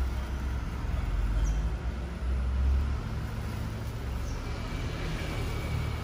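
Low, steady rumble of road traffic, a little heavier in the first half.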